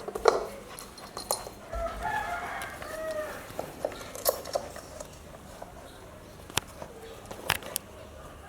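A rooster crowing once, about two seconds in, lasting a second and a half, with a few sharp knocks scattered around it.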